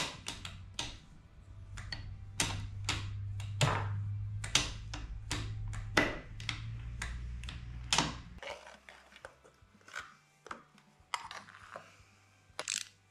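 Irregular metallic clicks and clanks of hand tools and engine parts being handled and set down during engine assembly, over a low steady hum that stops about eight seconds in.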